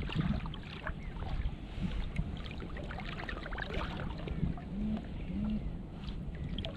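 Water lapping and splashing against a float tube, with wind rumbling on the microphone.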